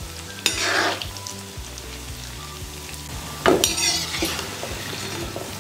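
Urad dal pakodas deep-frying in a kadai of hot oil, a steady sizzle. It surges louder twice, about half a second in and again a little past three seconds, as a slotted spoon stirs the fritters in the oil.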